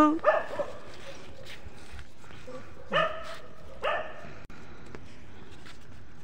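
Dogs play-fighting, giving a few short barks and yips: one just after the start, then two more about a second apart around the middle.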